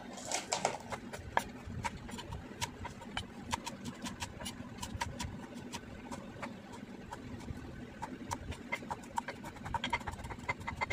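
Knife chopping fresh coriander leaves on a cutting board: a steady run of sharp taps, a few a second.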